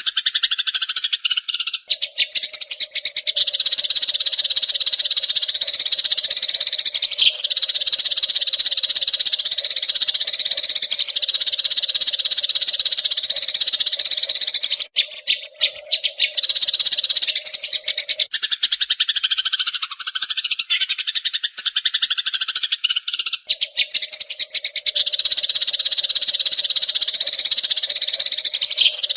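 Eurasian tree sparrows chirping in a fast, dense, continuous chatter, with a short break about halfway through.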